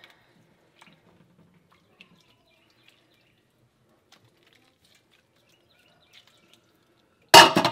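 Hot mozzarella curd lifted from its pot of hot water on a slotted spoon, with faint drips and small clicks. Near the end comes a brief, loud clatter.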